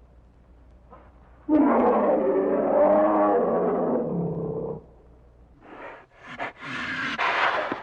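A big cat roaring once, a loud call about three seconds long that starts abruptly and then dies away. Near the end a different, higher-pitched animal call begins.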